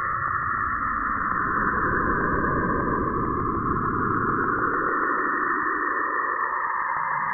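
Space-sound recording billed as Saturn's sound, a sonification of the planet's radio emissions: a steady, eerie hiss with a fast, faint ticking beneath it, about six ticks a second.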